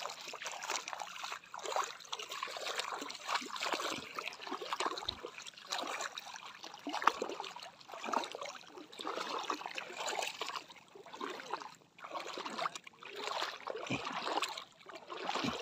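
Shallow seawater sloshing and trickling, with small splashes, in irregular surges.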